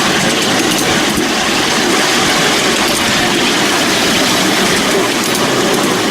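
Miniature railway train running along the track, a steady rolling rumble and rattle of the wheels and cars on the rails heard from aboard, with a few faint clicks near the end.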